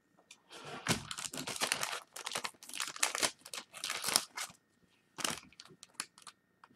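Trading cards being handled and laid out on a table: about four seconds of rustling and sliding, then a few light taps as cards are set down.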